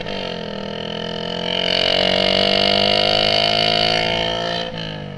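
Motorcycle engine running loud through an aftermarket exhaust tip, its note climbing in pitch over the first second and a half as the bike accelerates, holding steady, then dropping sharply near the end.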